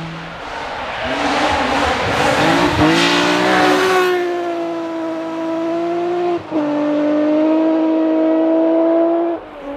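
Rally car going by at full throttle: a rushing noise of tyres on the stage, then the engine revs sharply up about three seconds in and holds a high, steady note, with a short break near the middle like a gear change. The engine sound stops abruptly near the end.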